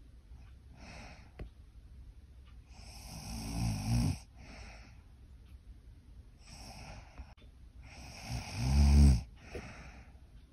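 A sleeping woman snoring: two loud snores, one about three to four seconds in and one about eight to nine seconds in, each swelling and then stopping sharply, with softer breaths between them.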